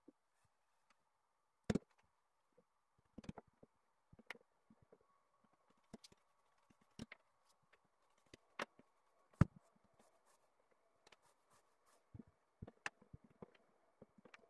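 Long thin wooden rolling pin knocking and rolling on a wooden tabletop while sheets of baklava dough are rolled around it, in scattered, irregular knocks; the loudest come about two seconds in and about nine seconds in.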